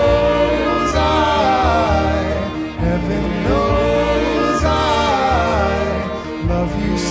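Pop song performed live with an orchestra: voices singing a gliding melody over acoustic guitar, flute and marimba, with a pulsing bass line underneath.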